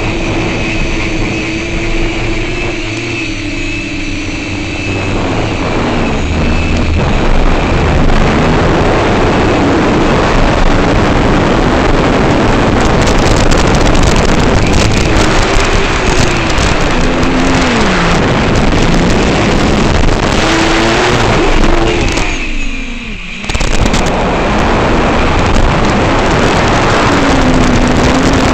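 FPV quadcopter's brushless motors whining in flight over heavy wind rush, the pitch rising and falling with the throttle. About three-quarters of the way through the sound drops away for about a second, as the throttle is cut, then picks up again.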